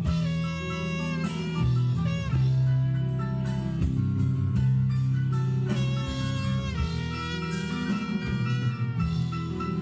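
Live band playing an instrumental passage: a sustained lead guitar melody with a few sliding notes over bass and drum kit.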